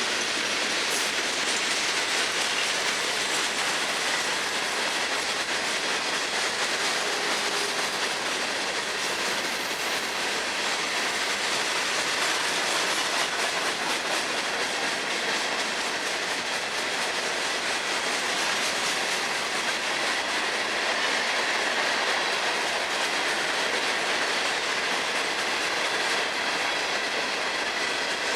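Freight cars of a long Florida East Coast Railway train rolling steadily past, their steel wheels clicking over the rail joints with a faint high wheel squeal.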